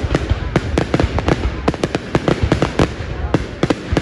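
Fireworks display: many aerial shells bursting in quick irregular succession, several sharp bangs a second over a continuous low rumble.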